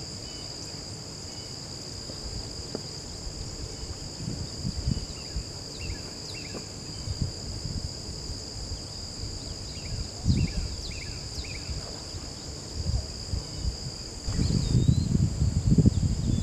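Steady high-pitched chorus of summer insects, with faint short bird chirps over it and low rustling knocks. Near the end a louder low rumbling noise comes in.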